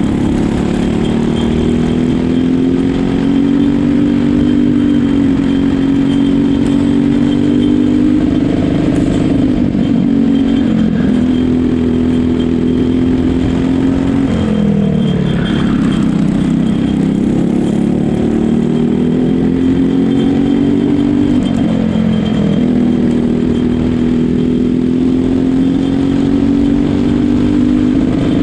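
Kart's Briggs & Stratton LO206 single-cylinder four-stroke engine at racing speed, heard from on board. Its note climbs steadily under full throttle and drops sharply several times as the driver lifts for corners, then climbs again.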